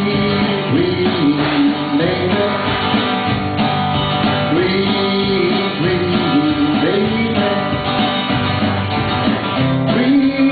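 Acoustic guitar strummed in a steady rhythm, with a man's voice carrying a gliding melody over the chords.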